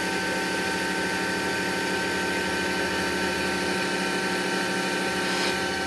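Steady hum from the DaVinci AiO 3D printer's fans, running with the print finished, with a few steady whining tones and a faint regular pulse about three times a second.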